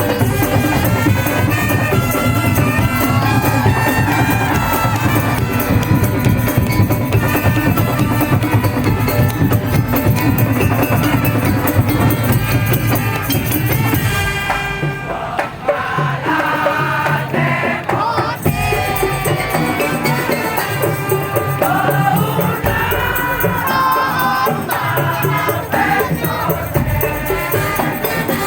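Loud music with drums, rattling percussion and a melody line, running without a break. It thins out for a few seconds around the middle before filling back in.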